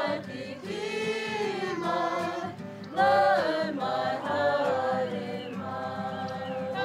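A group of children and adults singing together in chorus, a kapa haka song.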